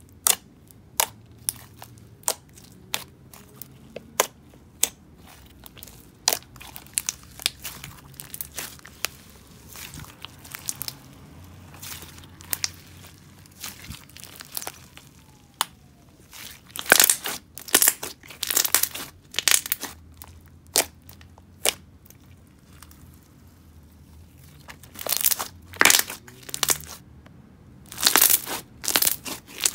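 Clear-glue jelly cube slime squished and kneaded by hand, its slushy texture giving a run of sharp crackles and pops as trapped air bubbles and crushed jelly cubes break up. The crackling grows louder and denser a little past halfway and again near the end.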